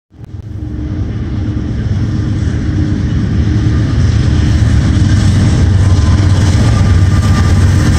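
Approaching Norfolk Southern freight train with four diesel locomotives: a deep, low rumble grows steadily louder as it nears the grade crossing, with a repeating ringing from the crossing bell.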